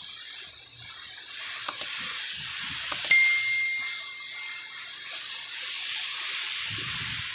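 Subscribe-button overlay sound effect: a pair of clicks, then more clicks and a bright bell ding that rings out for about a second and a half. Under it, a steady hiss.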